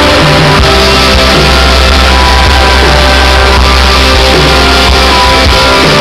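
Rock band playing live with electric guitars and drums, recorded on a camcorder at near full level so the sound is dense and poor in quality.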